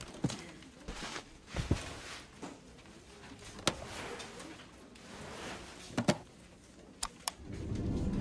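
Quiet handling noise from a smartphone being held and turned in the hands: scattered soft taps and a few sharp clicks, two close together about six seconds in and two more near the end.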